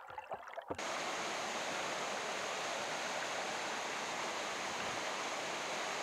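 Mountain stream water rushing and splashing over rocks in a small cascade: a steady, even rush that comes in abruptly just under a second in.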